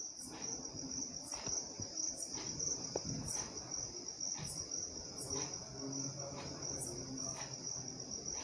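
Insect chirping: a steady, high, finely pulsing trill with a stronger chirp about once a second, over a faint low rumble.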